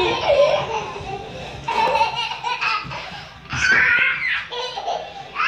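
Young children laughing, with a burst of high-pitched squealing laughter about three and a half seconds in.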